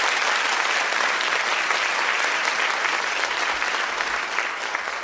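Applause from a large crowd, a steady unbroken patter of many hands clapping.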